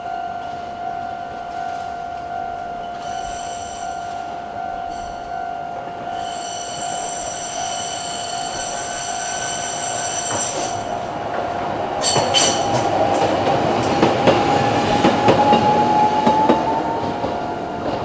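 Japanese level crossing alarm ringing at a slow tempo while a Toei Arakawa Line tram approaches with a high-pitched wheel squeal. About twelve seconds in the tram clatters onto the crossing and rumbles across it, the loudest part.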